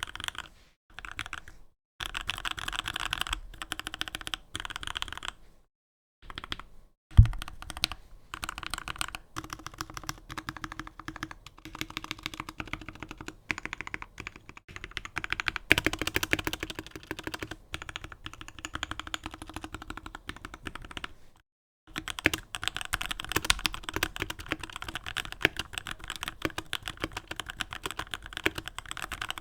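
GK61 60% mechanical keyboard being typed on quickly, keystrokes clattering in bursts broken by short pauses, with one heavier thump about seven seconds in.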